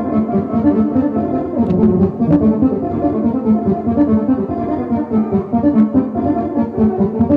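Orchestral-style music led by brass instruments over a steady, regular beat.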